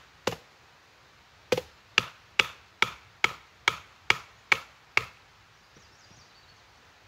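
A knife, an Esee Laser Strike, being batoned through a log on a stump: a baton knocks sharply on the blade's spine. There is one strike, then after about a second's pause nine quick strikes at about two a second, stopping about five seconds in.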